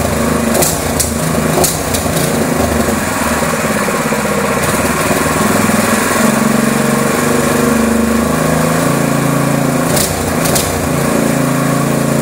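A brand-new Honda GX-clone single-cylinder four-stroke engine running on its first start, its speed stepping up and down several times. A few sharp clicks sound near the start and again about ten seconds in.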